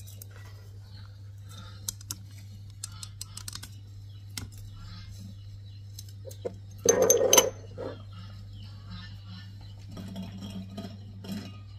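Scattered light clicks and clinks of small objects being handled, over a steady low hum, with one louder half-second sound about seven seconds in.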